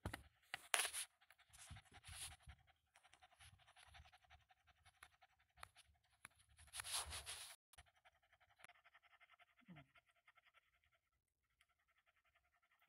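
Small dog panting quickly and faintly, with two louder breathy rushes about a second in and around seven seconds in.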